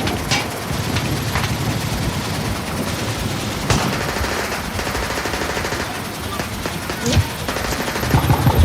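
Close firefight: dense, rapid automatic gunfire, with a few sharper single shots standing out at irregular intervals.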